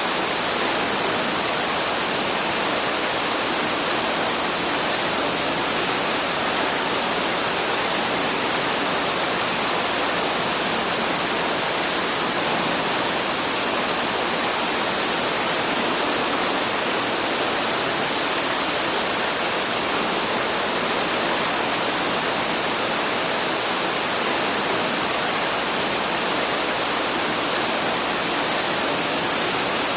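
Waterfall rushing in a steady, unbroken roar.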